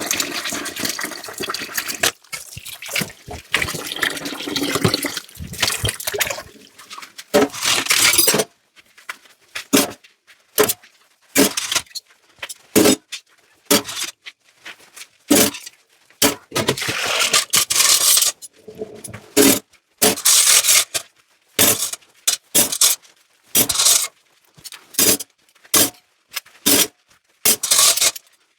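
Tap water running into a kitchen sink for about the first eight seconds, then shutting off. After that, a long run of short, separate sounds of dishes being handled and rinsed, each followed by a near-silent gap.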